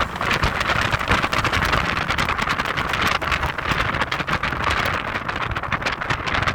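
Heavy wind buffeting on the microphone of a moving Audi TT 225 roadster, a dense rushing noise with quick irregular gusts, over a low road and engine rumble.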